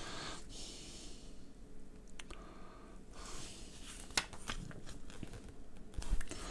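Paper pages of a small instruction booklet rustling and crinkling as they are handled, with a page turned over in the second half and a couple of sharp paper ticks.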